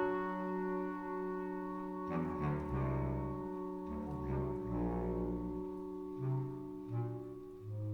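Clarinet choir playing sustained chords, with low bass-register notes entering about two seconds in and moving beneath the held harmony.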